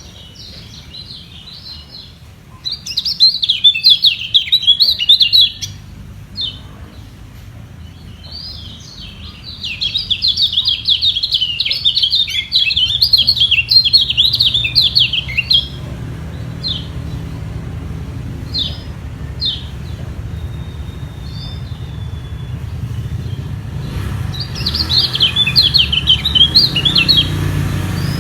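Kecial kuning white-eyes singing in fast, high twittering bursts, three long runs with single chirps between them. The birds are in a singing duel, each trying to outsing the other.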